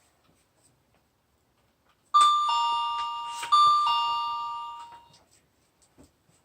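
Two-note ding-dong doorbell chime, sounded twice about two seconds in, a higher note falling to a lower one each time, the notes ringing on and fading.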